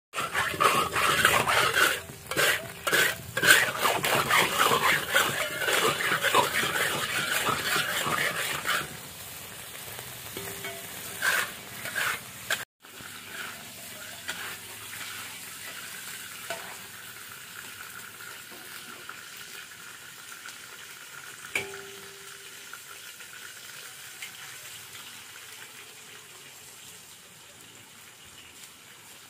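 A metal spatula scrapes and stirs in a hot wok with sizzling, loud and busy for about the first nine seconds. After that comes a much quieter, steady low sizzle of oil in the pan, broken by an occasional scrape or click.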